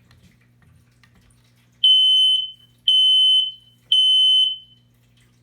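Smoke detector sounding its test alarm after its test button is pressed: three loud, high-pitched beeps about a second apart, starting about two seconds in, in the temporal-three pattern.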